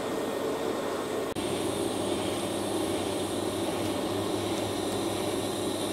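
Arc welding on a stainless steel exhaust pipe: a steady hiss with a low hum, broken off once for an instant about a second and a half in.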